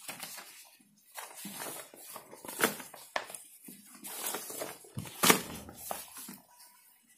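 Sheets of paper rustling and sliding as they are moved about and lifted on a file board, in a run of short irregular scrapes and rustles. The sharpest come about two and a half seconds and five seconds in.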